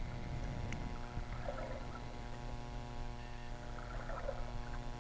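Underwater sound through an action camera's waterproof housing: a steady low hum and rumble, with faint gurgles coming and going.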